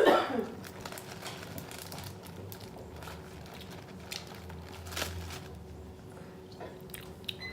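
Faint crinkling of a plastic sandwich bag being handled, with scattered small clicks and ticks.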